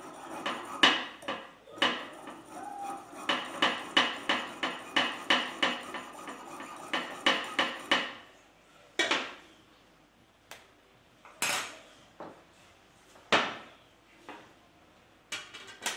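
Small coping-style frame saw cutting a thin metal rod by hand, with fast rasping strokes about three a second for some eight seconds. After that come several separate sharp metal clinks as the rod and tools are handled.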